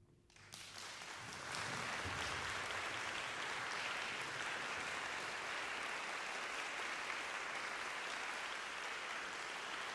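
Audience applauding: the clapping starts about half a second in, swells to full strength within about a second, and then holds steady.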